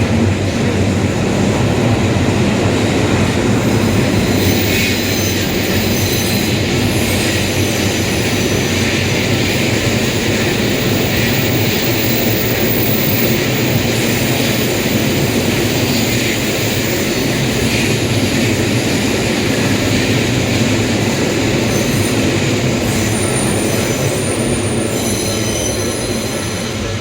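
Train passing close by at a level crossing: a loud, steady rumble of wheels on rails lasting the whole time, with some thin high-pitched tones coming in near the end.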